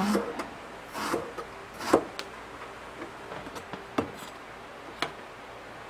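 Kitchen knife cutting eggplant into chunks on a plastic cutting board: several separate knocks of the blade through the eggplant onto the board, roughly a second apart.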